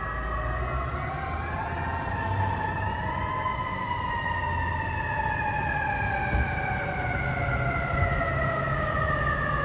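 Fire truck siren wailing. The pitch climbs over about three seconds, then slowly falls for the rest, over a low rumble of engine and street noise.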